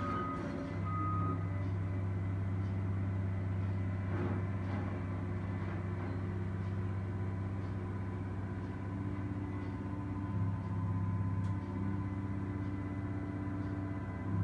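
Caterpillar tracked excavator's diesel engine running steadily under load while it carries a long steel gas pipe in its clamp. A high-pitched motion alarm beeps twice in the first second or so.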